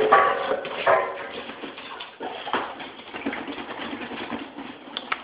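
A dog giving excited, high-pitched cries, loudest at the start and again about a second in, then fading to quieter scuffling. A run of short sharp clicks comes near the end.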